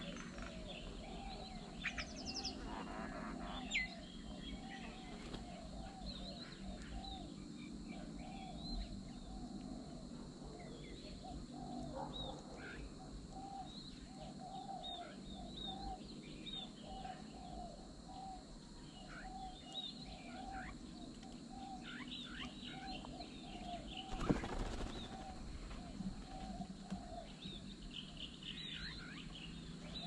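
Birds chirping and calling: many short high chirps over a steadily repeated lower call. About twenty-four seconds in comes a sudden flurry of wingbeats as birds take off from the feeding table.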